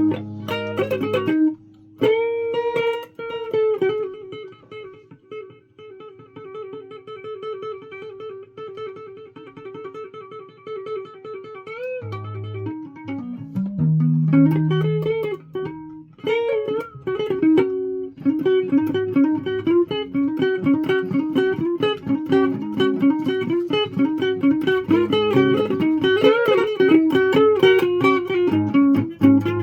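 Guitar being played. A few held notes give way to one note picked rapidly over and over for several seconds. After a couple of low notes near the middle, busier melodic playing runs through the rest.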